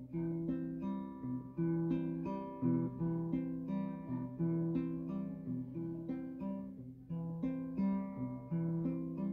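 Acoustic guitar played solo: chords plucked and strummed in a steady, repeating pattern.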